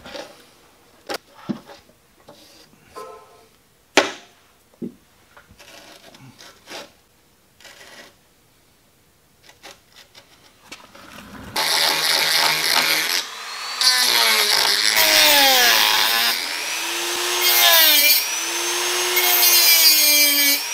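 Light clicks and taps of a small steel part being handled, then about halfway through a Dremel rotary tool starts grinding the metal. Its whine repeatedly dips and recovers as it bears into the edges to clean them up.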